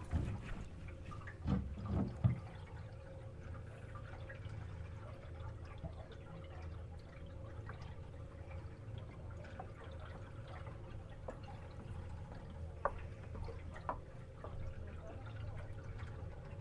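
Canal water lapping and dripping against a small tour boat over a steady low rumble, with a few knocks in the first couple of seconds and scattered small splashes later.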